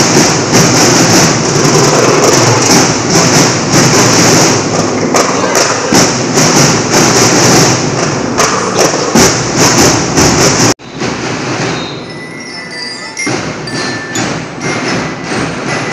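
School marching drum band playing loudly for a majorette routine, its drumbeats hitting in a fast, steady rhythm over crowd noise. About eleven seconds in the sound cuts off abruptly and comes back quieter, with a few held high notes.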